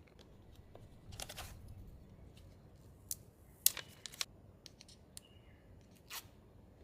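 Smartphone box and packaging being handled: a short scraping, tearing rustle about a second in, then a few sharp clicks and taps, the loudest a little past the middle, and a brief swish near the end.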